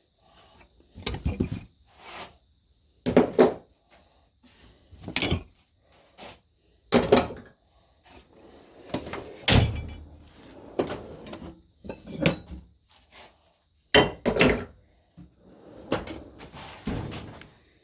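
A string of irregular knocks and clanks, about one every second or two, from hand tools and metal parts being handled and struck while the pins are worked out of a snowplow's mount.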